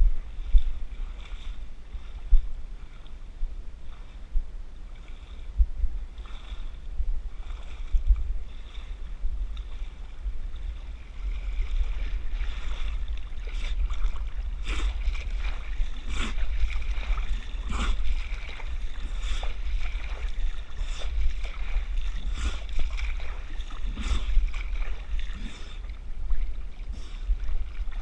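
Water splashing as a person moves through a river, heard over a steady low wind rumble on a head-mounted GoPro. About a third of the way in, the splashing grows louder and comes in quick, irregular strokes.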